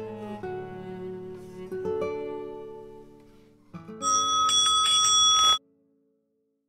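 Soft plucked-guitar background music, its notes fading down. About four seconds in, a bright bell ring plays as a sound effect for about a second and a half and cuts off suddenly.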